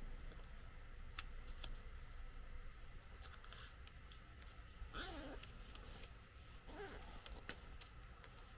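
Faint rustling, crinkling and small clicks of origami paper being folded and creased by hand, over a low steady hum. Two brief faint squeaks come about five and seven seconds in.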